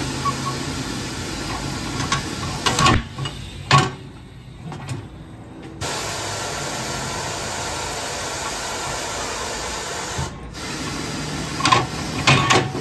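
Tire changer working on a tire with its bead being broken and the tire demounted. It runs with a steady mechanical whir, low hum and hiss, broken by sharp metal clanks and bursts of air about three seconds in and again near the end. The running noise stops for about two seconds around four seconds in.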